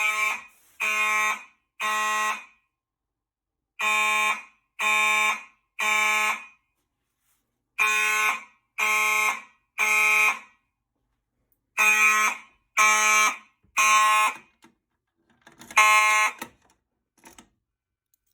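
Gentex fire alarm horn strobes sounding the temporal-three evacuation pattern: three buzzy horn blasts about a second apart, a pause, then again. The sound is quite loud. After four full rounds and the first blast of a fifth, the alarm cuts off as the panel is silenced.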